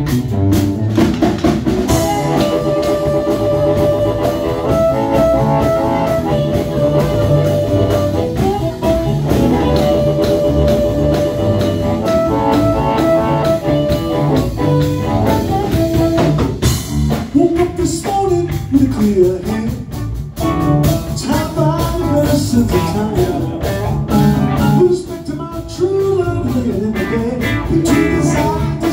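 A live blues band with electric guitars, keyboard and drum kit. An amplified blues harmonica plays long held notes over roughly the first half, and a man's singing voice takes over in the second half.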